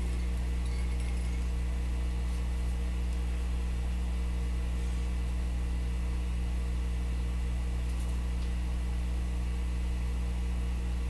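Steady low electrical hum, a mains hum with its overtones, holding even throughout with no other clear sound.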